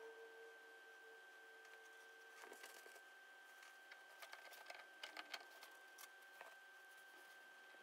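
Near silence: faint small clicks and taps of a brass portal housing being handled and fitted onto an RC crawler's axle, clustered in the middle, over a faint steady high tone.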